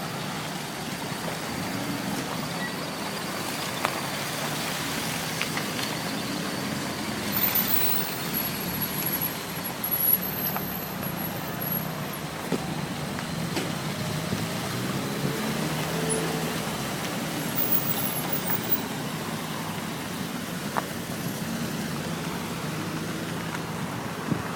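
Vehicle engines running steadily amid street traffic, with a few sharp knocks.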